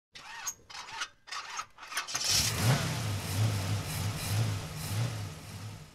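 A few short bursts, then an engine catches about two seconds in and settles into an idle, a low rumble that swells roughly every two-thirds of a second and fades near the end.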